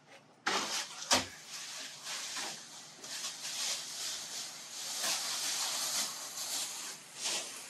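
Plastic packaging wrap rustling and crinkling as it is pulled off and handled, with one sharp knock about a second in.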